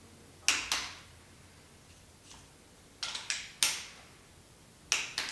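Sharp metallic clicks from a torque wrench tightening the sump-cover bolts of a Porsche M96 flat-six to 9.5 ft-lb. There is one click about half a second in, a quick cluster of three around three seconds, and a pair near the end.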